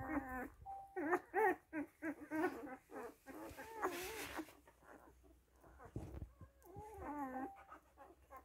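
Nursing newborn puppies whimpering and squealing in a string of short, wavering cries. There is a brief rustle about four seconds in and a soft thump about six seconds in.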